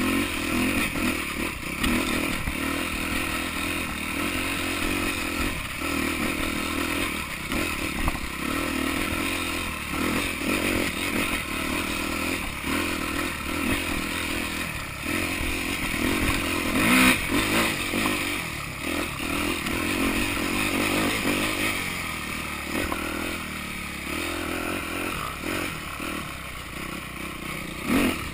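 Yamaha YZ250F four-stroke single-cylinder dirt bike engine running under constantly changing throttle while riding rough trail, with chassis clatter and scraping. A sharp knock comes about 17 seconds in and another near the end.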